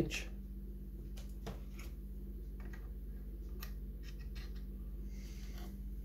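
Faint, scattered metallic clicks and brief scrapes of a lock-picking tension tool being fitted and worked in the keyway of a five-lever mortice lock, with a longer scrape about five seconds in.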